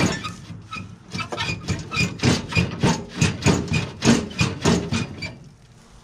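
Metal being struck repeatedly: a regular run of ringing knocks, about three a second, that stops about five seconds in.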